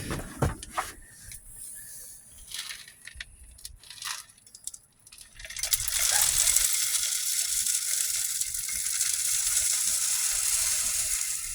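A few light clicks and rustles of handling, then, about halfway through, birdseed poured in a steady hissing, rattling stream into a bird feeder.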